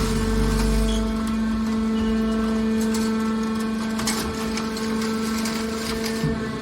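Hydraulic car baler running: a steady mechanical hum on one pitch. A deeper rumble drops away about a second in, and a few knocks come about four seconds in.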